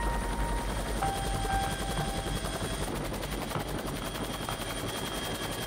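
Helicopter rotor and engine noise, a steady chopping drone heard from aboard the helicopter.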